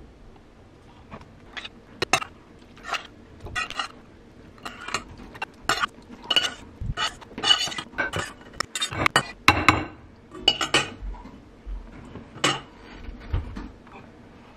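Dishes and cutlery clinking and clattering: a string of irregular knocks and clinks, starting about a second in and stopping shortly before the end.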